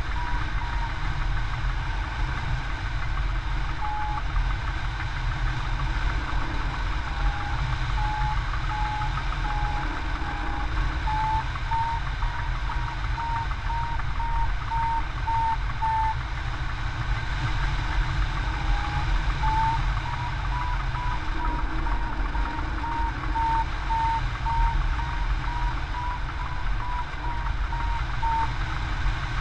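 Hang glider variometer beeping in quick short pips whose pitch drifts up and down, stopping twice for a few seconds; the beeps signal the glider climbing in lift. Steady wind rushing over the wing-mounted microphone underneath.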